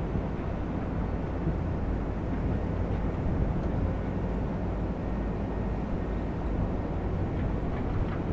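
Diesel engine of heavy construction machinery running steadily, an even low drone with no change in speed.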